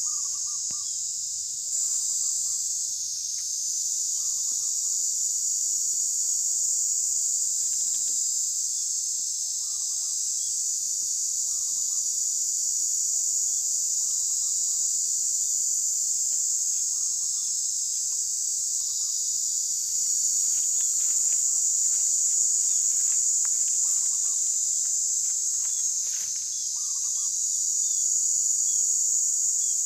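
Steady high-pitched drone of forest insects, with a bird repeating a short call every second or two.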